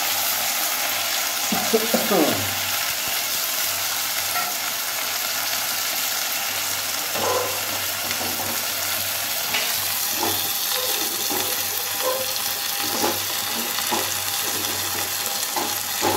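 Lentils and diced potato frying in hot mustard oil in a metal kadai, a steady sizzle over a low hum. From about seven seconds in, a spoon scrapes and taps against the pan every second or so as the mixture is stirred.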